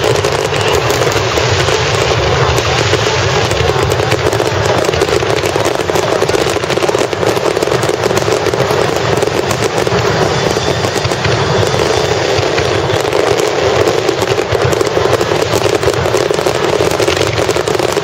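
Dense barrage of fireworks: many bursts and crackles run together into one loud, unbroken noise.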